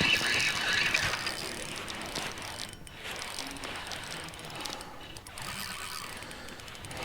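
Fishing reel being cranked to retrieve a lure, a fast, fine whirring click of the gears, loudest in the first second and then steadier.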